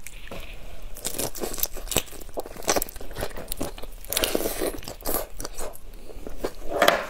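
Whole raw marinated shrimp being handled and bitten, its shell crunching and crackling in quick, irregular clicks close to the microphone.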